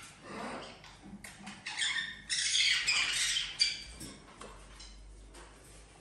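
Parrot squawking in harsh calls: a short call near the start, then a louder, longer run of squawks in the middle that dies away after about four seconds.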